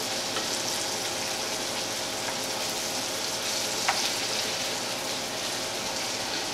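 Pieces of pig heart frying in butter in a cast-iron skillet, a steady sizzle, with the range hood fan humming beneath it and a single light knock about four seconds in.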